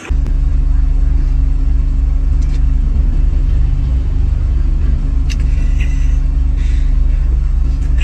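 Steady low drone of a car heard from inside the cabin, with a few faint, brief higher sounds over it.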